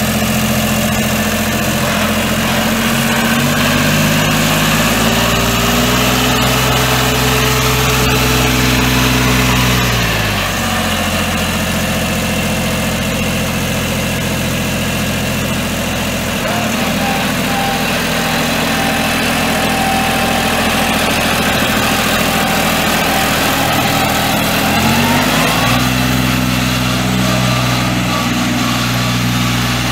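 Nortrac TE204 tractor's 1.53 L three-cylinder diesel engine running, throttled up in steps a few seconds in and held at higher revs. It drops back to idle about ten seconds in, then is raised again a few seconds before the end.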